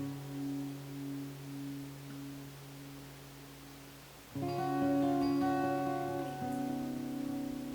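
Background acoustic guitar music: a held chord dies away, then a new chord is strummed about four seconds in and rings on.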